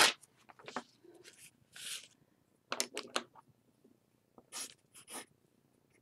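A sheet of paper being handled and slid across a tabletop, heard as scattered short rustles and light taps with quiet gaps between them.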